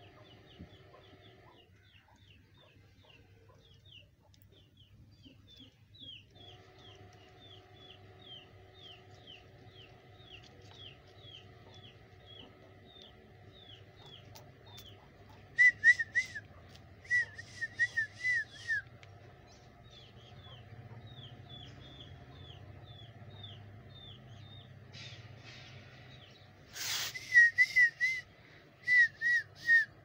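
Parakeet giving loud, shrill, wavering calls in two bouts, one around the middle and one near the end. Under them runs a steady series of quick, high, falling chirps, about two a second.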